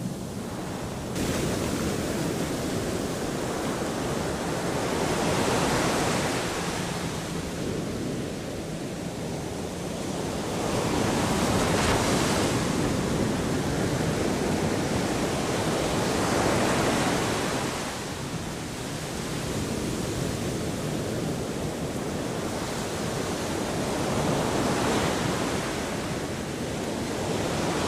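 Ocean surf washing onto a beach, swelling and fading with each wave every several seconds.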